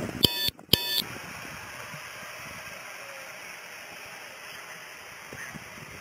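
Two short electronic beeps about half a second apart, from a police body camera as it switches its audio recording on. Then a steady hiss of outdoor background noise.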